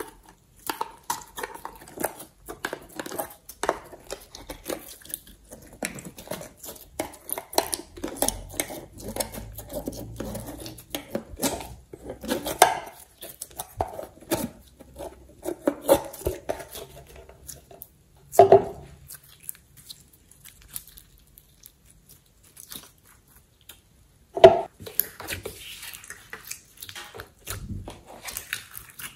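Slime being squeezed out of a plastic jar and pressed by hand: a run of sticky clicks, crackles and squelches. Two louder short squelching pops stand out, one about two-thirds of the way through and one a few seconds later, with a quiet stretch between them.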